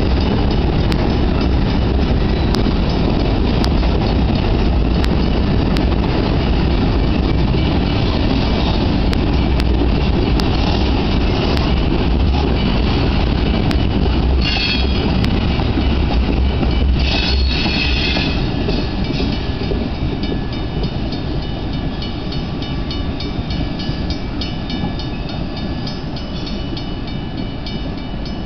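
Freight train of tank cars rolling past: a steady, loud rumble and clatter of steel wheels on rail, with two brief high squeals about halfway through. The sound then fades gradually as the end of the train draws away.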